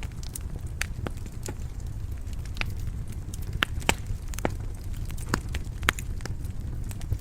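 Wood fire burning in a stone fireplace: a steady low rumble of the flames, with sharp crackles and pops at irregular moments, a few louder snaps about halfway through.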